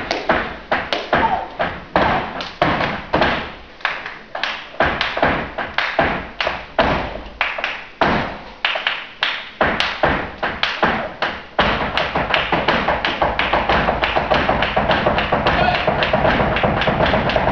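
Flamenco dancer's shoes stamping and tapping on a wooden stage in zapateado footwork. The heel and toe strikes come singly in an uneven rhythm, then a little over halfway through they break into a fast, continuous run of stamps.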